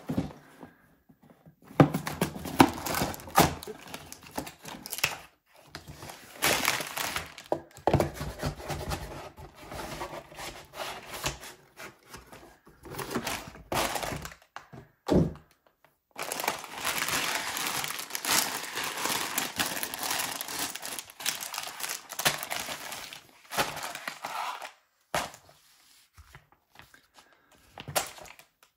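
A cardboard Lego box being opened and emptied onto a wooden table: knocks and thunks of the box and its contents, with tearing of the flaps. Plastic bags of bricks crinkle, most steadily in a long stretch in the second half.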